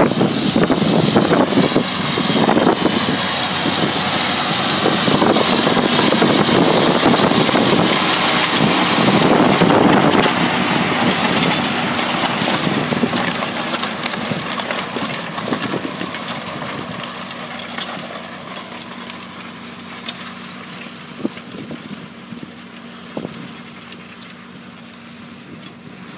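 John Deere tractor engine running under field work, loud for about the first ten seconds and then fading steadily.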